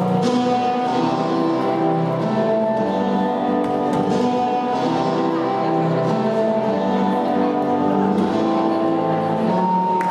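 Instrumental guitar music playing over a sports hall's sound system as the accompaniment to an artistic roller skating program.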